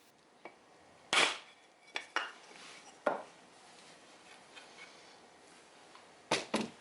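A handful of sharp knocks and clacks of hard objects, the loudest about a second in, a pair just after two seconds, one at about three seconds and two close together near the end.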